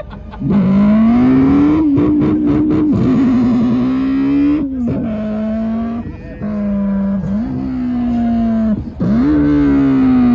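Car engine held at high revs while the car spins donuts, with tyre squeal. The revs drop briefly about four times and climb straight back.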